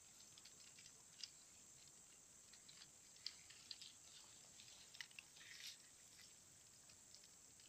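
Near silence, with faint scattered ticks and crackles from a small wood campfire burning.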